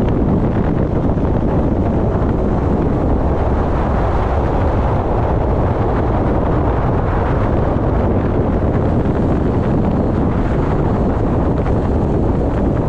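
Steady, loud wind rumble on the microphone.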